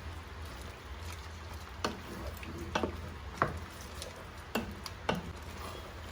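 A spoon stirring a thick pork stew (caldereta) in a cooking pot, with about five sharp knocks of the spoon against the pot in the middle of the stretch, over a low steady hum.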